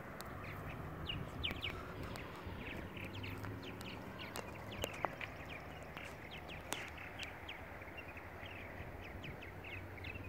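Birds chirping: many short, quick calls, one after another, over a low steady hum.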